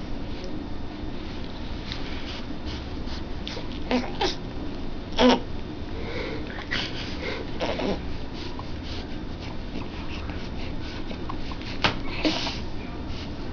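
A baby's snuffly breathing and small grunts while being burped, with one louder short grunt about five seconds in and a few more near four, eight and twelve seconds. Scattered soft taps and clicks run through it.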